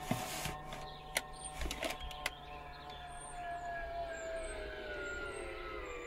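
A whine from a device switched on at the van's dashboard, falling slowly and steadily in pitch, with a few clicks in the first couple of seconds.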